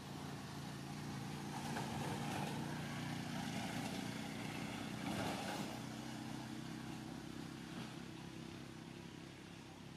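A motor vehicle's engine running, growing louder over the first few seconds and then fading away.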